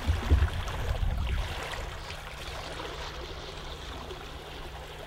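Small trout stream running and rippling over a riffle, a steady rush of water. A low rumble is loudest in the first second and a half, then eases.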